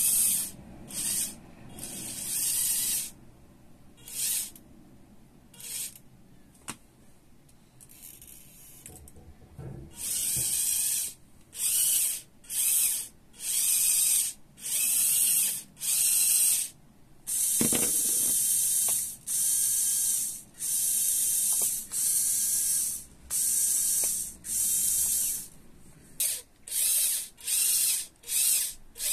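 LEGO Technic electric motor and its plastic gear train whirring in short on-off bursts, about twenty-five of them, each from a fraction of a second to about a second long, as the motor is pulsed from a remote. The bursts are mostly high and hissy, some carrying a steady whine.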